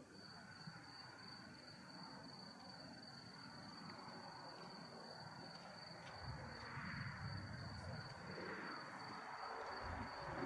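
Crickets trilling steadily, one high unbroken tone, faint. From about six seconds in a low rumbling noise rises and grows louder.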